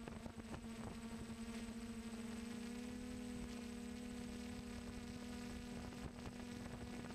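Steady buzzing hum of a DJI Flame Wheel F450 quadcopter's motors and propellers in flight, picked up by the camera on its own gimbal; the pitch wavers slightly at first, then holds even.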